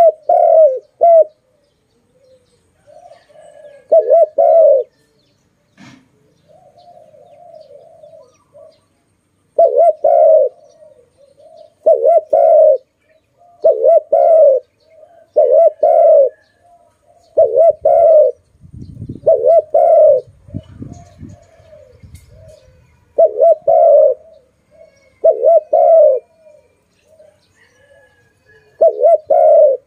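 Spotted dove cooing loudly: short, loud coo phrases repeated about every two seconds, with softer, quieter cooing between them.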